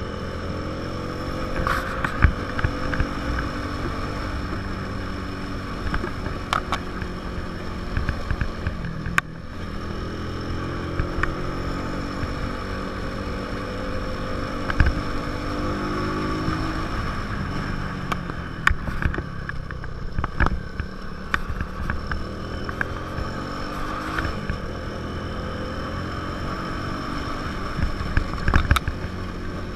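Small 150 cc motorcycle engine pulling uphill in third gear, its pitch rising and falling several times as the throttle opens and closes. Steady wind rush on the microphone and scattered short knocks run throughout.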